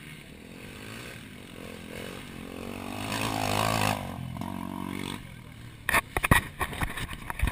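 Enduro motorcycle engines revving out on the course, rising to their loudest about three to four seconds in and then fading. A run of sharp knocks follows near the end.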